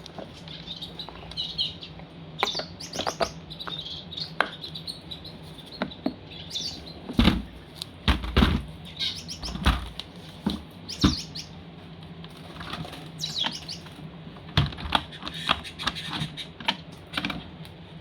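Small birds chirping on and off, mixed with a run of sharp clicks and knocks that are loudest about seven to eleven seconds in, over a low steady hum.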